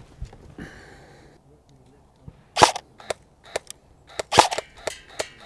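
Arcturus AK12 airsoft electric gun firing sharp single shots with a mechanical crack. The two loudest come about two and a half seconds in and again about four and a half seconds in, with a few fainter cracks around them.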